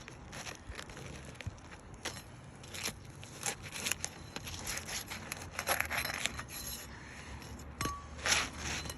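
Asphalt shingles being worked loose and pulled apart: irregular scraping, crackling and tearing as the sealed shingle layers separate, with a few longer rasping tears past the middle and near the end.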